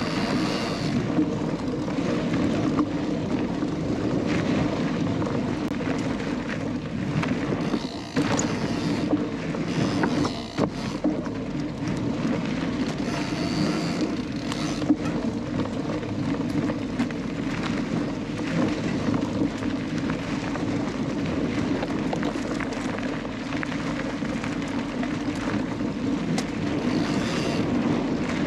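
Canyon Lux Trail mountain bike rolling along a dirt trail: steady tyre rumble and wind noise on the camera microphone, with a few knocks and rattles from the bike over bumps.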